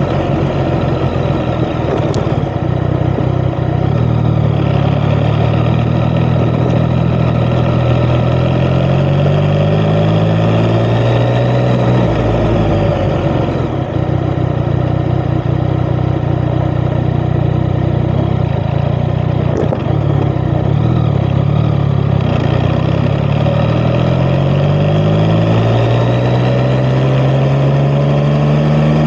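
Yamaha XSR900's inline-three engine running through an Akrapovič titanium exhaust while riding: the engine note climbs under acceleration, drops back about twelve seconds in, holds fairly steady, then climbs again near the end.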